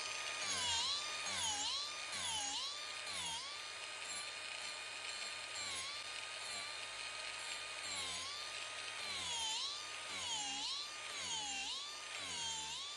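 Electric power-carving grinder fitted with a Saburrtooth carving wheel, roughing out a dish in a solid-wood bench leg. Its steady motor whine sags in pitch and recovers about once a second as each pass bites into the wood, over a gritty grinding noise.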